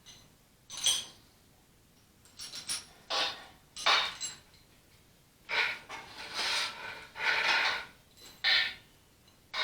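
Metal tools and engine parts being handled: a run of short, uneven clinks and scrapes, a few with a faint ring.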